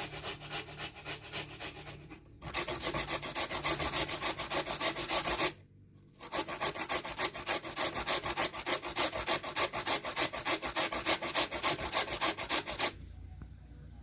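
Rapid, even back-and-forth scraping strokes, about four or five a second. They pause briefly about five and a half seconds in, start again, and stop about a second before the end.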